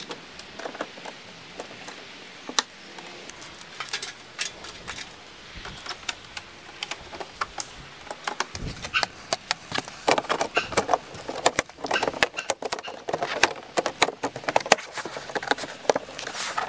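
Plastic clicks and taps as snap-on winter covers are fitted onto a motorhome's fridge vent grilles and their turn-catches twisted, growing into a quick run of clicks about halfway through.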